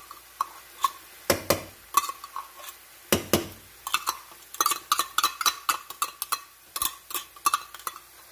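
A utensil scraping and tapping chopped green chilies out of a small can, then clinking and scraping against a frying pan as it stirs: a run of sharp, irregular clicks and knocks, busiest past the middle.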